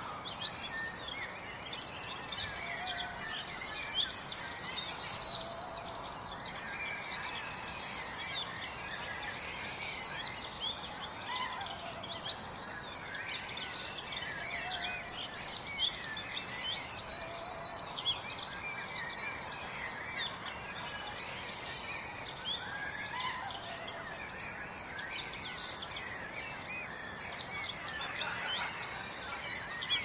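Many birds chirping and singing over a steady rush of falling water, with a few lower whistled notes now and then.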